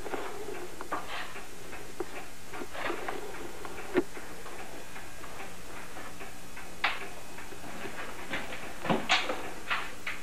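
Sparse, irregular light clicks and knocks over a steady hiss, with one sharper knock about four seconds in and a small cluster near the end.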